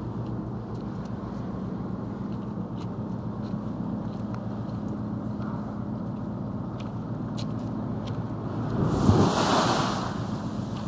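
Steady low drone of a large car ferry's engines. About nine seconds in comes a loud, roughly one-second rush of churned water washing against the quay wall.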